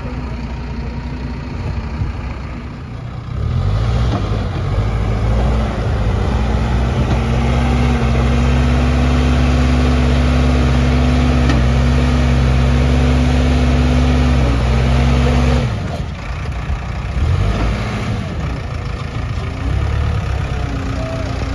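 Bull SD76 backhoe loader's diesel engine revving up about four seconds in and holding at high revs for about twelve seconds while the front bucket digs into a pile of soil. It then drops back toward idle, with a couple of short revs near the end.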